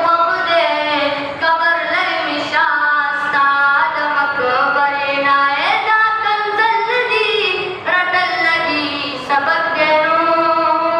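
A boy's unaccompanied voice singing a Pashto naat into a microphone, in long held notes that glide and waver between phrases.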